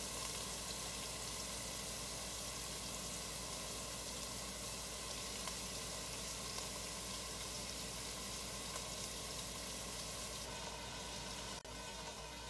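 Ground beef frying in a stainless steel pot, a steady sizzle, with a brief break near the end.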